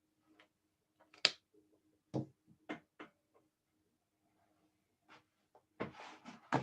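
A few sharp clicks and knocks, the loudest about a second in, then a quicker cluster near the end, over a faint steady low hum.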